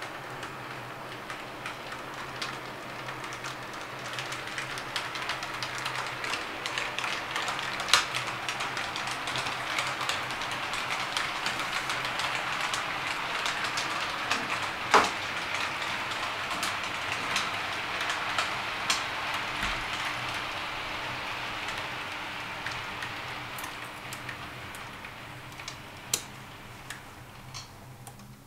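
Model train, a Class 50 diesel locomotive model hauling coaches, running along the layout's track: a rattling rush of wheels on rail that grows louder toward the middle and fades away near the end, with scattered sharp clicks.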